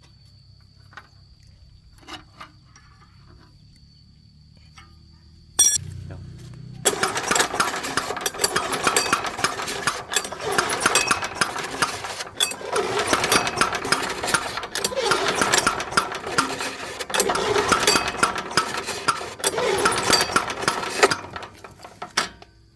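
Small single-cylinder 173F diesel engine of a mini tractor being started, with a sudden burst about five seconds in, then running loudly and unevenly for about fourteen seconds before it shuts off near the end.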